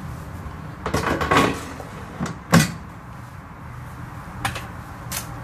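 Kitchen clatter from handling an air fryer basket and a metal springform cake pan: a burst of knocking and scraping about a second in, one sharp knock, the loudest, a moment later, then a few light taps.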